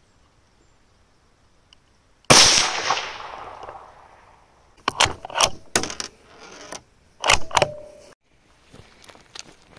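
A single .22 WMR rifle shot about two seconds in, with a long echoing tail. A few seconds later comes a run of sharp metallic clicks and clacks from the rifle's action being handled.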